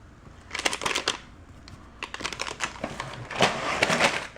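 Plastic snack pouches and their packaging crinkling and rustling as they are handled, in three short bursts.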